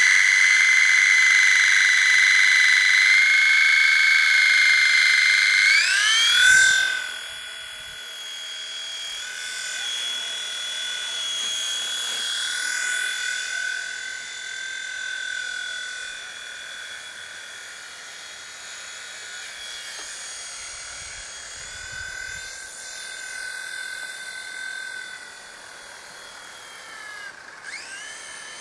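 WLtoys V911-1 micro RC helicopter's electric motors and rotors whining at a steady high pitch. About six seconds in the pitch rises as it lifts off, then the whine carries on fainter, wavering up and down as it flies away. The pitch drops near the end.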